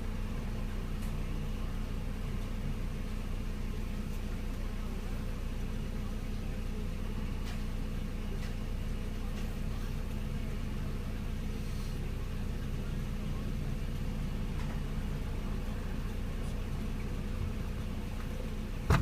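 Car engine idling, heard from inside the cabin as a steady low hum, with one sharp click right at the end.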